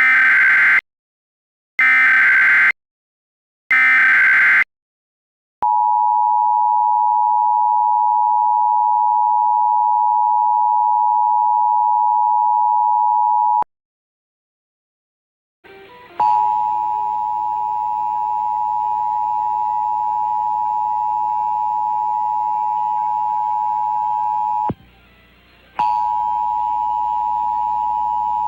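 Emergency Alert System tones: three short warbling data bursts of the SAME header, about two seconds apart, then the steady two-tone attention signal for about eight seconds. After a short pause the attention signal starts again, this time with hiss underneath and a brief dropout near the end, as it comes in relayed for the monthly test.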